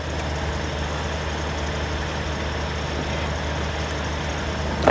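Semi truck's diesel engine idling with a steady low hum. A short bump sounds right at the end.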